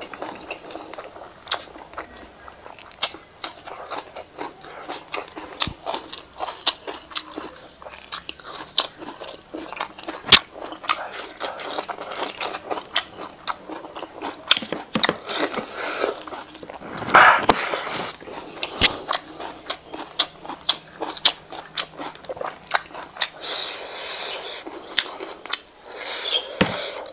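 Close-up eating sounds of pork belly and rice being chewed: rapid wet clicks and lip smacks throughout, with a louder burst about seventeen seconds in.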